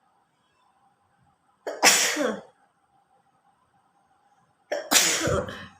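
A woman sneezing twice, about three seconds apart.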